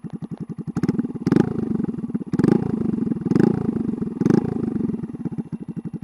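Honda Grom's 125 cc single-cylinder four-stroke engine idling through an aftermarket MNNTHBX exhaust, then revved four times in quick throttle blips about a second apart, each one rising sharply and dropping back to the even idle.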